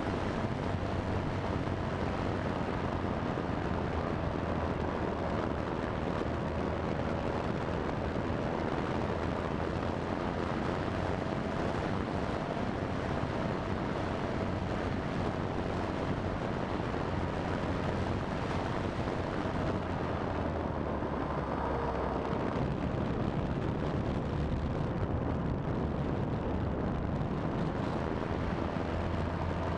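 Steady rush of wind over a fixed-wing FPV model plane's airframe and onboard camera microphone as it glides down with its motor throttled back. A faint thin whine runs through it and dips slightly in pitch a little after twenty seconds in.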